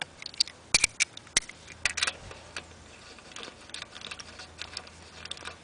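Metal clicks and taps of a socket on an extension bar against the wheel nuts, as the nuts are spun on and snugged by hand on an alloy wheel. There are several sharp clicks in the first two seconds, then lighter scattered ticks.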